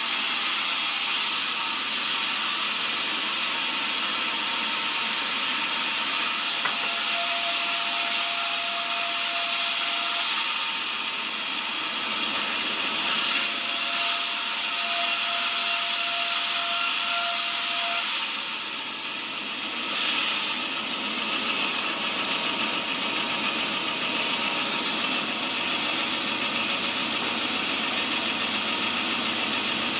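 Sawmill saw running and cutting lengthwise through a log of soft cempaka (champak) wood, a steady machine noise with a thin whine that comes and goes twice in the middle.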